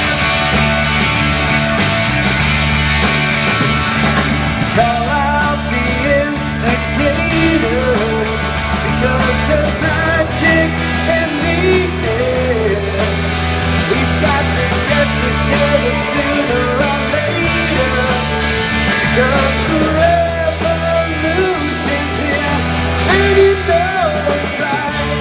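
A live rock band playing, with electric guitars, bass guitar and drums, and a man singing lead vocals over them from about four seconds in.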